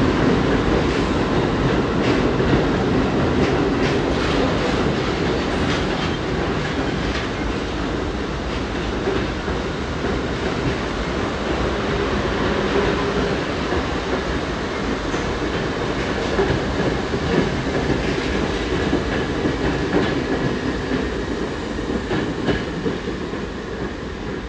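A train of retired New York City subway cars rolling through the station, with a steady rumble and wheels clacking over the rail joints. It gets quieter toward the end as the train pulls away.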